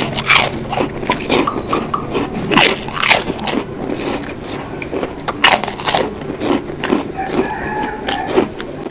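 Close-miked eating of nasi Padang mixed with tiwul: irregular biting, crunching and chewing sounds, with sharp smacks and crunches throughout.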